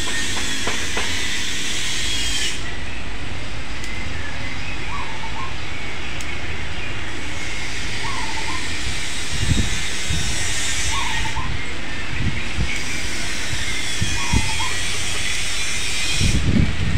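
A steady, even hiss with a short chirp repeating about every three seconds and a few low bumps near the end.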